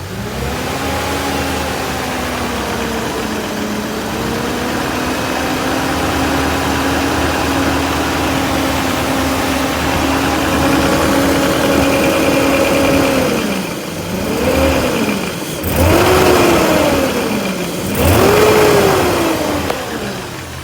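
BMW M62B44 4.4-litre V8 revved up and held at raised revs for about thirteen seconds, then blipped three times, with the radiator fan running. The engine has a knock that the owner takes for piston slap against the cylinder liner.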